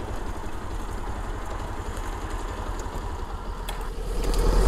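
Motorcycle engine idling steadily with a low rumble, growing louder near the end.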